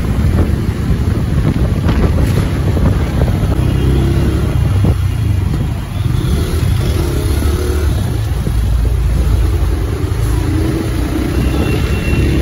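Wind buffeting the microphone of a moving motorcycle, with engine and road noise underneath, steady and loud. A brief dip comes about six seconds in.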